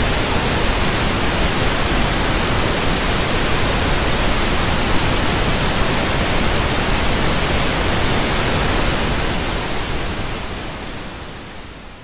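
Television static: a loud, steady hiss of white noise that fades away over the last few seconds.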